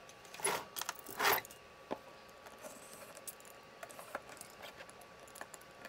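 A box cutter slitting the plastic shrink-wrap on a phone box, with the box being handled. Two short scraping rustles in the first second and a half and a sharp click near two seconds in, then faint small scratches and ticks.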